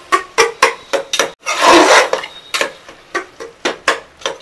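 A slotted spatula scraping and stirring thick masala against the inside of an aluminium pressure cooker, in short strokes about three a second, with one longer, louder scrape about one and a half seconds in.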